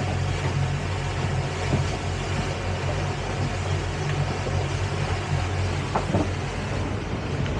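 Motorboat underway: a steady engine drone with the rush of wind and water past the hull.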